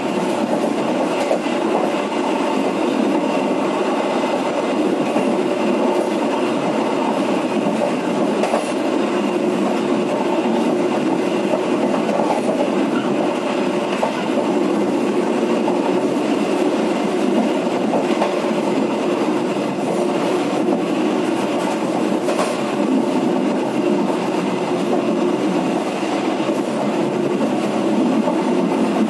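Penataran local passenger train running along the track, heard from the back of the last carriage: a steady rumble of wheels on rail, with a few sharper clicks over rail joints.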